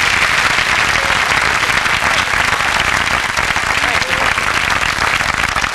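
Studio audience applauding steadily, with a few voices faintly audible through the clapping.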